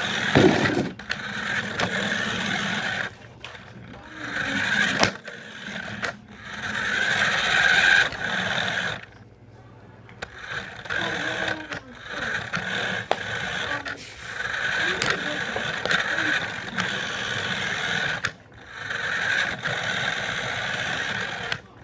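Electric motor of a remote-control car whining in bursts of a few seconds as the throttle is worked, heard up close from a camera mounted on the car. The whine stops briefly about nine seconds in and again near the end.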